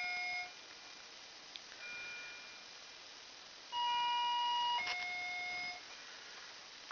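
Electronic two-note beep, a higher note of about a second dropping to a lower one, which comes at the very start and again about four seconds in. A fainter short beep sounds about two seconds in.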